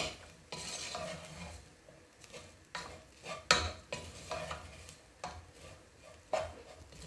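Wooden spatula stirring and scraping onions and ground spice masala around the bottom of a metal pressure cooker, in irregular strokes, with sizzling in the oil. The masala is being sautéed until the raw smell of the spices cooks off.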